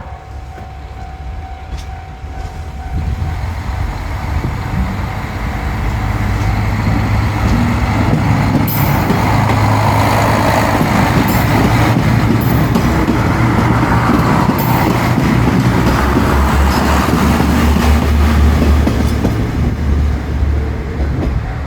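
KiHa 185-series diesel railcar pulling away from a station. Its engine rumble builds over the first several seconds and then holds steady, with a few sharp clicks along the way.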